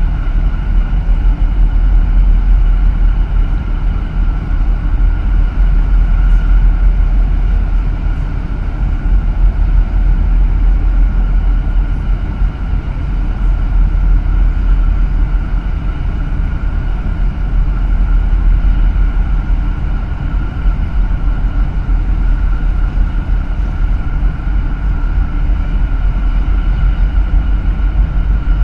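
Boat engine running steadily, a loud low rumble with a steady whine over it, mixed with the rush of water.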